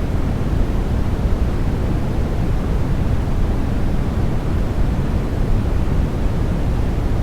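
Steady sleep-aid noise, sold as white noise but deep and rushing, heavier in the bass than in the hiss, with no changes or breaks.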